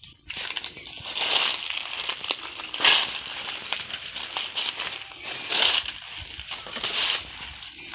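Dry leaf litter crunching and crackling in uneven surges, loudest about three seconds in and again near six and seven seconds in.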